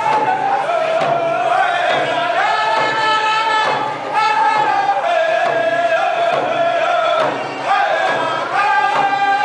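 Round dance singers chanting a song in unison. The melody moves in repeated phrases that rise and then step back down in pitch.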